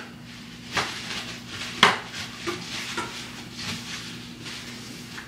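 Intermittent clatter of hard objects being handled out of view: short, sharp knocks and rattles, the loudest about two seconds in, over a faint steady hum.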